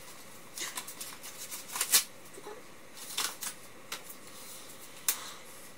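Handling noises of a small leather key case and its packaging: irregular rustling with a few short, sharp clicks, the loudest about two seconds in.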